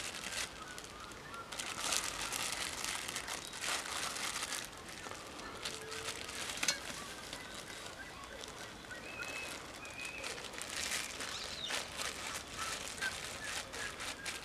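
Clear plastic bag crinkling and rustling in irregular crackles as bread dough is worked out of it into a metal lunchbox tin.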